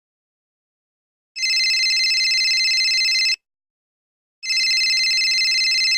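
Telephone ringing sound effect: a high, rapidly trilling electronic ring sounding twice, each ring about two seconds long with a second's pause between.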